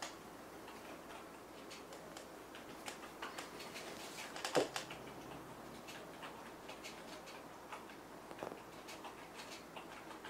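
A kitten moving about behind a couch pillow: scattered soft clicks and rustles of claws on fabric, with one louder, short sound about four and a half seconds in.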